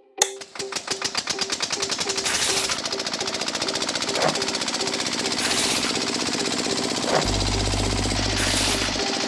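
Small motor-driven DIY machine rattling rapidly and evenly after starting with a click, with a low hum joining near the end.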